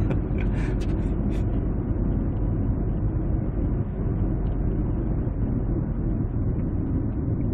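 Steady engine and tyre rumble heard inside a car's cabin while it cruises along a road.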